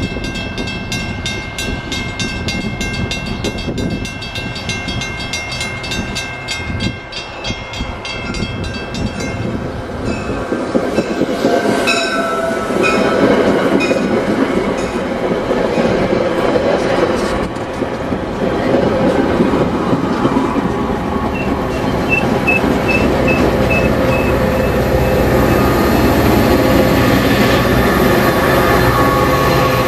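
Metra push-pull commuter train approaching and running along the platform, cab car leading and locomotive pushing at the rear. Rapid ringing bells ding for the first several seconds, a short horn sound comes about twelve seconds in, and the rumble and wheel clatter of the bilevel cars grow loud as they roll past.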